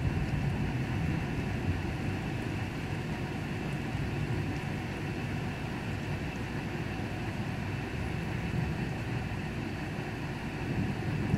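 Thunderstorm: a steady low rumble that swells slightly at the start and again near the end.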